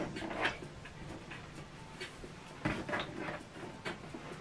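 HP Envy 6010 inkjet printer's mechanism running quietly after its ink-access door is closed, with a few clicks and knocks, as the cartridge carriage moves and the printer recognizes the new ink cartridges.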